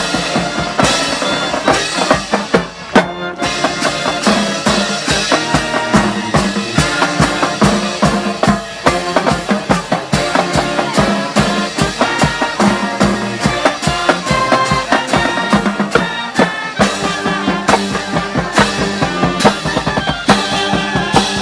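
High school marching band playing: brass melody over a drumline of snare and bass drums beating steadily, with a brief break about three seconds in.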